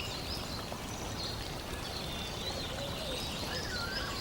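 Several small birds chirping and twittering in quick, short, looping calls over a steady hiss.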